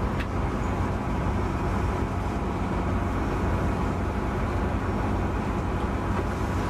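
Boat engine running steadily: a low hum under a constant hiss.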